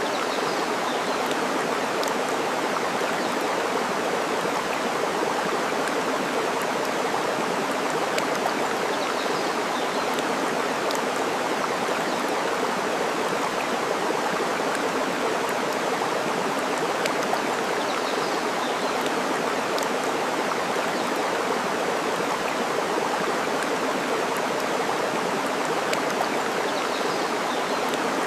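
Steady rushing of flowing water, like a stream, with a few faint crackles of burning wood from a campfire scattered through it.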